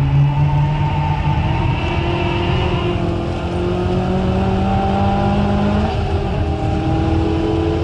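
Mitsubishi Colt Ralliart's turbocharged four-cylinder engine pulling hard at track speed, heard from inside the cabin, its pitch climbing slowly and dropping once about six seconds in as it shifts up a gear before climbing again.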